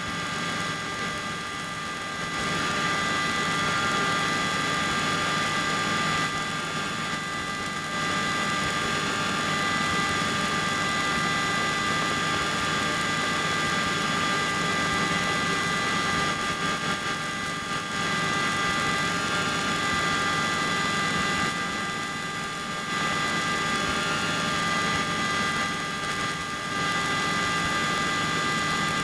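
Helicopter engine and rotors running, heard from inside the cabin: a steady drone with several steady whining tones. The level steps up about two seconds in and dips briefly a few times.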